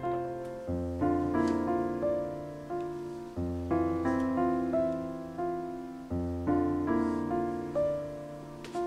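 Background piano music: slow chords struck and left to ring, with a new low bass note about every three seconds.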